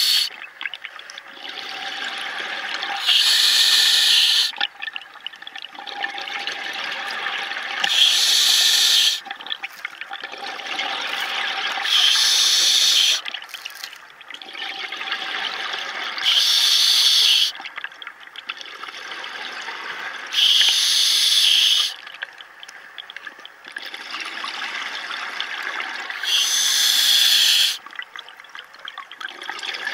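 A scuba diver breathing through a regulator underwater: six loud rushes of exhaled bubbles, about one every four seconds, with a softer hiss of inhalation between them.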